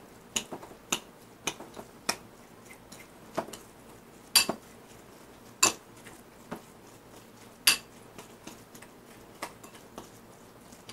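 A utensil stirring tuna salad in a bowl, clinking and knocking against the bowl at an irregular pace of roughly one knock a second.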